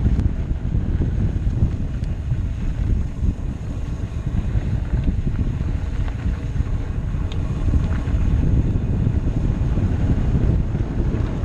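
Wind buffeting the microphone while a mountain bike rolls along a dirt trail: a steady low rumble of wind and tyre noise, with a few faint clicks and rattles from the bike.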